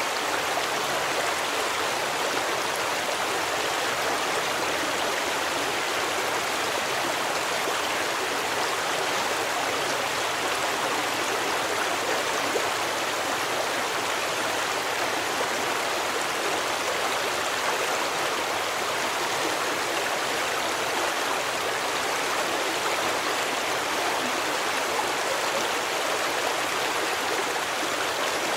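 A forest stream running: a steady, even rush of flowing water.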